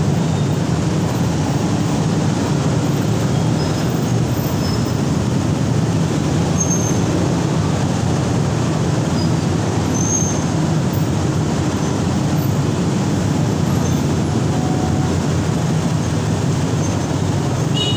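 Dense motorcycle and car traffic creeping through a road underpass: a steady drone of many engines, strongest in the low range, with a few brief high squeaks.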